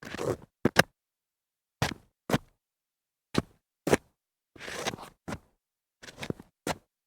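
Shoes shuffling on concrete: short scuffing steps, mostly in pairs about half a second apart, with longer scrapes of the soles along the ground near the start and about two-thirds through.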